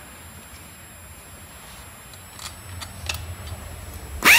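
Faint clicks and knocks of a massage chair's metal roller bracket and plastic rollers being handled and set down on a concrete floor. Near the end, a sudden loud burst of noise with a tone that sweeps up and back down.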